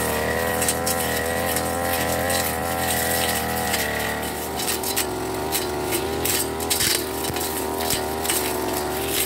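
A backpack brush cutter's small petrol engine running under load while cutting grass and weeds, its pitch wavering up and down. Scattered sharp ticks come in from about halfway through.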